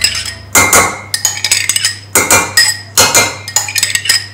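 Metal spoon scraping and clinking against the inside of a glass jam jar as apricot jam is spooned out, a quick series of clinks and scrapes, each with a short ring.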